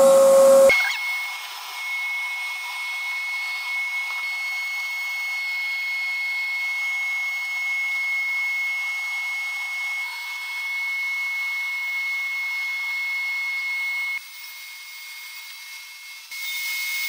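The table saw's motor hum cuts off sharply just under a second in. What remains is the shop vacuum on the saw's dust hose, running steadily as an even hiss with a thin high whine. It dips quieter for a couple of seconds near the end.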